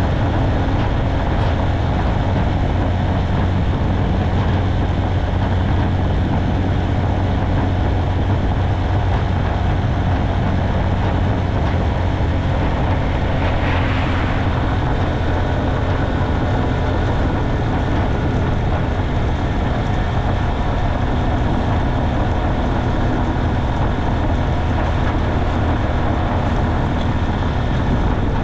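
Small motorcycle's engine running steadily at cruising speed, with a low, even drone under wind and road noise, heard from on board the moving bike. About halfway through there is a brief swell of higher hiss.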